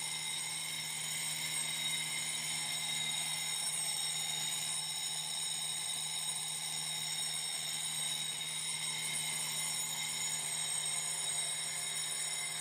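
Electric fire alarm bell ringing continuously with several steady high tones over a low hum, set off by a triggered fire detector.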